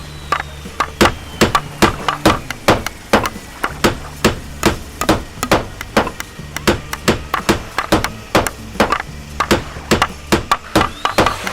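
Rapid sharp knocks, about three to four a second, over a low droning tone that cuts in and out.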